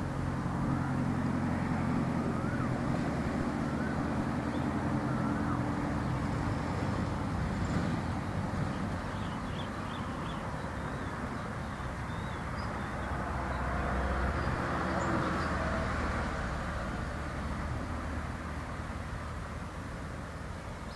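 Motor vehicle traffic passing: a low engine drone through the first several seconds, then a second swell of road noise about two-thirds of the way through, with faint high chirps over it.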